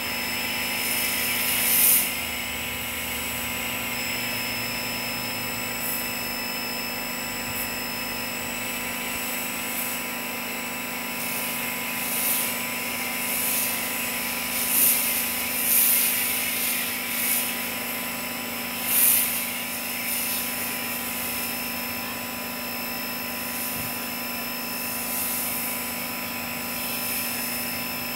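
1800 psi, 2 gpm Caterpillar-branded Active pressure washer with its five-piston CAT pump running steadily while a foam cannon sprays: a steady hum under the hiss of the spray, which swells briefly several times.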